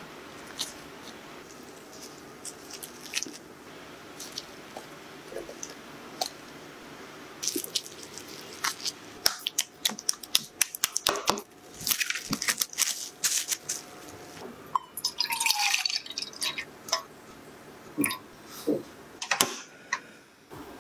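Wet squishing, scraping and clicking as soft durian pulp is mashed with a spatula in a glass bowl. The sounds are sparse at first and become a dense run of sharp scrapes and clicks through the middle.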